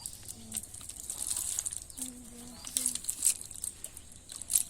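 Irregular sharp clicks and crackling rustles, with a brief hiss a little over a second in.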